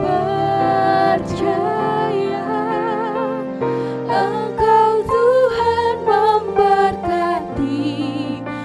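Slow church worship music: a singer holding long notes with vibrato over sustained instrumental chords.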